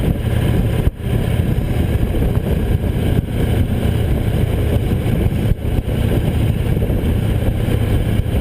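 Victory V-twin touring motorcycle riding over a rough, slippery construction road: the engine runs steadily under road and wind noise, with three brief drops in sound, about one, three and five and a half seconds in.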